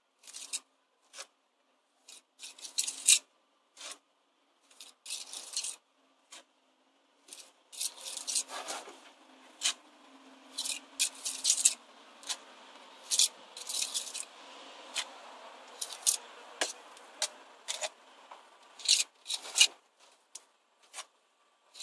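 Pointing trowel scraping mortar off a hawk and pressing it into cut-out brick joints: short, irregular scrapes and rasps of steel on mortar and brick.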